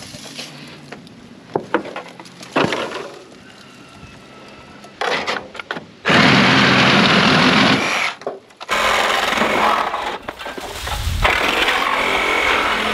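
Reciprocating saw with a metal-cutting blade cutting through heavy nails holding an old gutter in place: a loud burst about six seconds in, then steady cutting again from about nine seconds on. Scattered knocks and clatter of handling come before the cutting.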